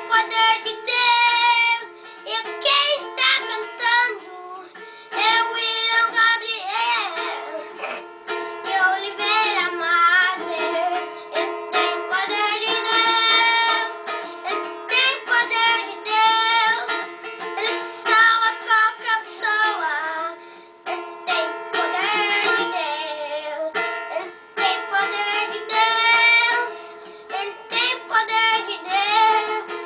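A child singing while strumming a cavaquinho, the sung melody wavering and sliding over steady strummed chords.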